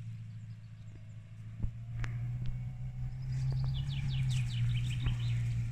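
Subaru Forester's flat-four boxer engine running with a low steady drone, growing louder in the second half as the car comes closer. A songbird sings a quick run of descending notes near the end, and a couple of sharp clicks sound around the middle.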